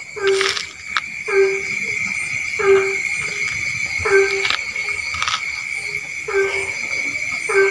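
Frogs calling at night: a short, low, horn-like croak repeated about every second and a half, over a steady high-pitched chirring of crickets or other insects.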